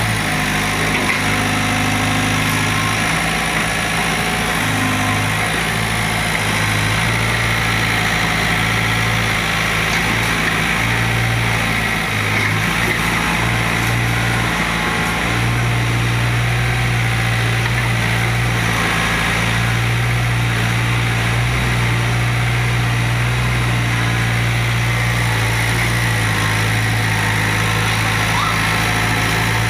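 Diesel engine of a Doosan 55W excavator running steadily.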